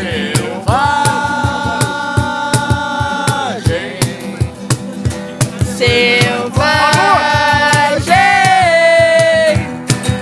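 Acoustic guitar strummed in a steady rhythm under voices singing long, drawn-out notes, in three held phrases.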